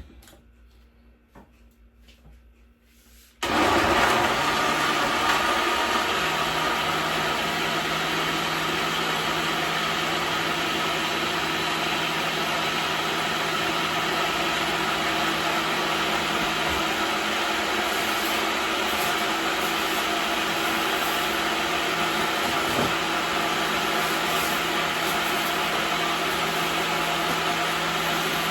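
Blender switched on about three seconds in, after a few faint clicks. It runs steadily on chopped green-seasoning herbs with a little water, its motor hum rising over the first couple of seconds as it picks up speed.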